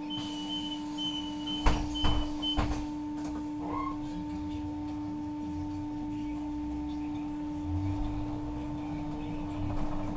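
Inside a city bus at a stop: a door warning beeper sounds in short pulses, then the doors shut with a few knocks about two seconds in. The bus then pulls away, a low drone rising under a steady hum.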